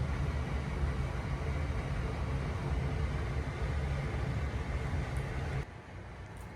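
Steady low rumble of a moving vehicle, heard from inside. It cuts off suddenly about five and a half seconds in, leaving quieter room tone.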